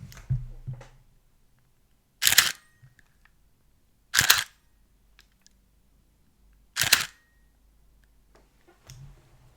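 Pentax 645Z medium-format DSLR firing its shutter three times, about two seconds apart, each a short clack of mirror and shutter.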